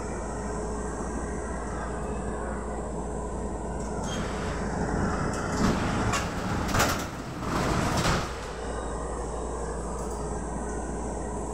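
Interior of a KTM-5 tram car standing still, with the steady hum of its onboard electrical equipment. Midway there are a few seconds of rattling and several knocks, the passenger doors working.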